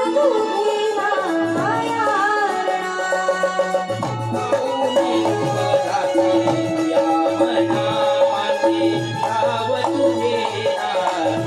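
Live Indian folk devotional music: a keyboard melody with bending, wavering notes over a hand-drum rhythm. The drums and bass come in more strongly about four seconds in.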